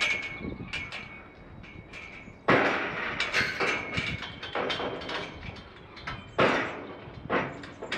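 Tubular steel livestock gates rattling and clanging as they are handled and swung shut, with three loud metal clangs: at the start, about two and a half seconds in, and past six seconds.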